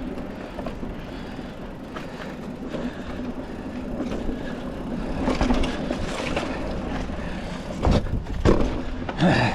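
Mountain bike on tubeless tyres rolling over a dirt trail: a steady rumble of tyres and rattling bike. The rumble grows louder about halfway through, and near the end there are several hard knocks as the bike jolts over bumps.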